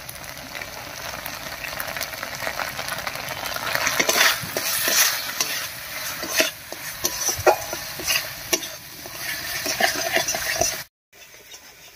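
A metal spatula stirring and scraping a thick spice paste of ground onion, ginger, cumin, coriander and dried chilli as it fries in oil in a metal kadai. The paste is being fried down. There is a steady sizzle under quick scraping strokes, which are busiest from about four seconds in, and the sound cuts off abruptly near the end.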